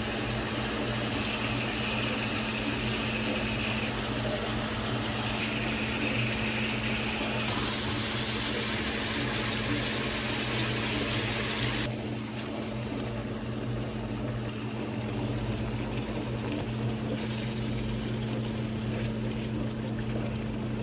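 Food frying in butter in a pan: a steady sizzle over a low hum, the sizzle thinning suddenly a little past the middle.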